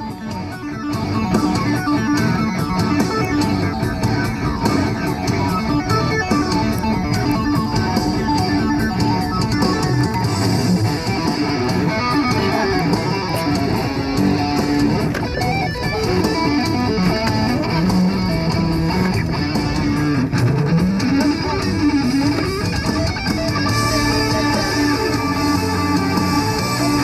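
Background music led by guitar, steady throughout, with a melody line that rises and falls about two-thirds of the way in.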